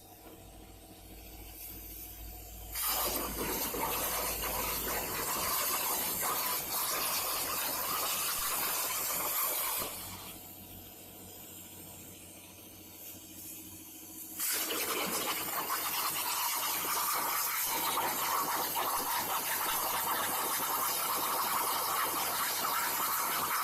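CNC plasma cutter's torch arc hissing loudly as it cuts sheet metal. It starts about three seconds in, falls back to a quieter hiss for a few seconds around the middle, then resumes at full strength.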